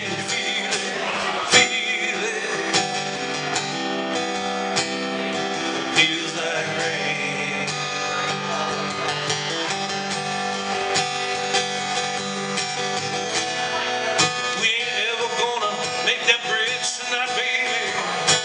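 Steel-string acoustic guitar strummed in a steady rhythm, an instrumental passage with no singing.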